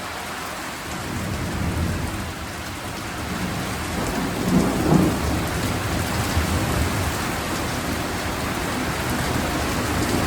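Steady rain falling, with a low rumble of thunder that builds about a second in and is loudest around the middle.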